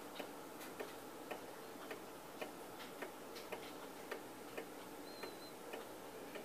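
The brass movement of an 1846 Chauncey Boardman ogee clock ticking evenly, a little under two ticks a second: the clock is running under its own power and in beat.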